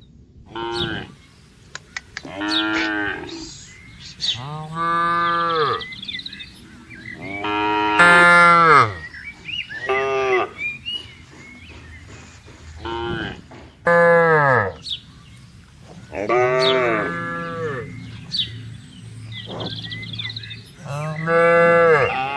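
Dairy cows mooing repeatedly, about ten calls of a second or so each, several dropping in pitch as they end.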